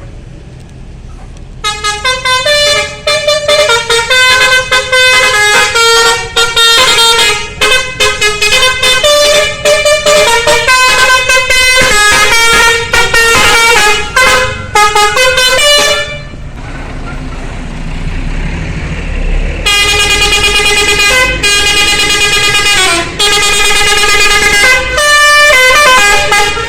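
Basuri V3 telolet bus horn playing a fast tune of short, loud horn notes, each a chord of several tones, over a low rumble. It breaks off for a few seconds in the middle, then plays again, with the notes sliding down in pitch near the end.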